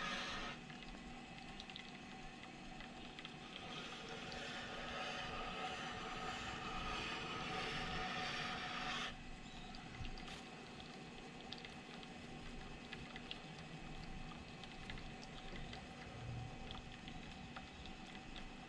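Motor of a wet sharpening machine running steadily, with a knife edge held against the turning wheel making a steady hiss. The hiss swells for about six seconds and then stops suddenly about nine seconds in, leaving the motor hum and a few light ticks.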